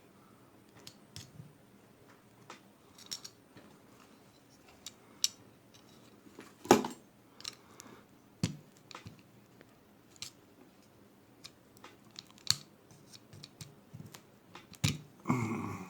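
Screwdriver and hammer working on an old ratchet head to prise a part out of place: scattered metal clicks and scrapes, with a few sharper knocks about 7, 8½, 12½ and 15 seconds in.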